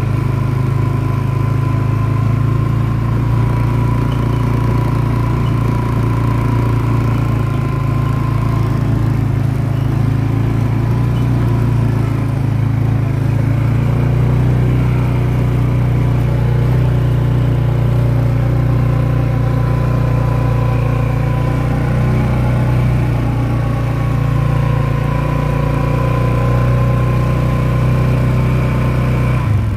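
ATV (four-wheeler) engine running as the quad drives over dirt, a steady low drone whose pitch shifts slightly about halfway through.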